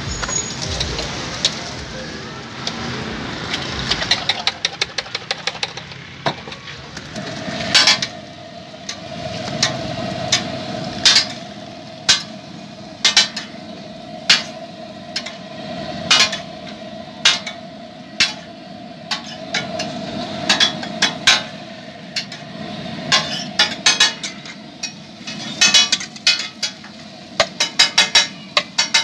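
Metal spatula clacking and scraping on a large steel griddle: sharp metallic strikes, single and in quick runs, thickest near the end. A steady mechanical hum sets in about seven seconds in and runs underneath.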